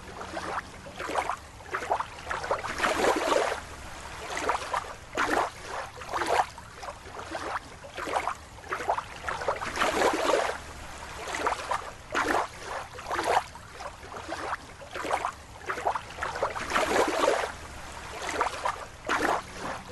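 Water sloshing and splashing in irregular surges, about one a second.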